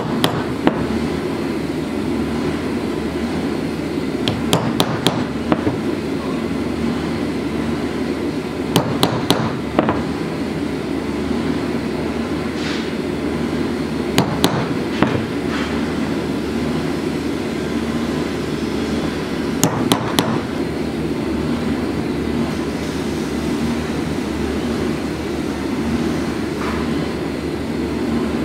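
A hammer striking a multi-pronged leather stitching chisel, punching stitch holes through leather: short groups of three to five sharp taps, repeated about every five seconds, that stop a little past the middle. A steady low hum runs underneath.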